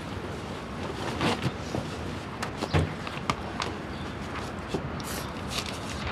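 Short rustles and light knocks of handling, with the paper pages of a spiral notebook being flipped near the end, and one soft thump about three seconds in, over steady background noise.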